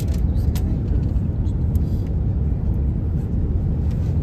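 Steady low rumble of cabin noise inside an Airbus A350 descending to land: engine and airflow noise heard from a passenger seat, with a few faint clicks.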